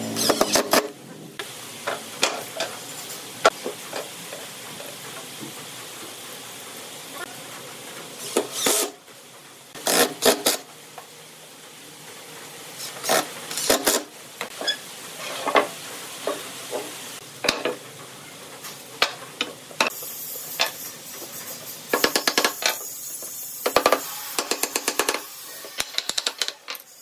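Makita 12V cordless impact driver driving screws into a pine frame in several short bursts, with knocks of the wood being handled between runs and a quick series of knocks near the end.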